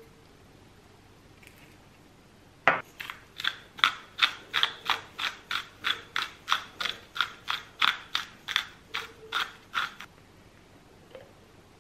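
Hand salt grinder being twisted to grind seasoned salt: one sharp knock, then an even run of ratcheting clicks, about three a second, for some seven seconds before it stops.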